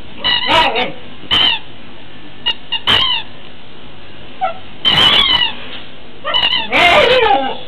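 Squeaky plastic fish toy squeaking as a husky bites and presses it: a string of short, irregular squeals, the last ones longer and sliding down in pitch.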